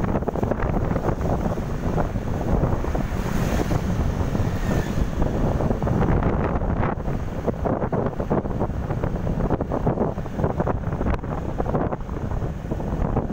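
Wind buffeting the microphone of a camera on a moving motorcycle, a dense, steady low rumble, with the motorcycle's engine and road noise underneath.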